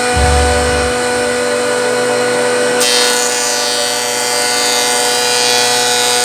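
Combination planer-thicknesser running with a steady motor and cutter-head whine. About three seconds in, a louder, hissing cutting noise joins it as a spruce board goes through the knives.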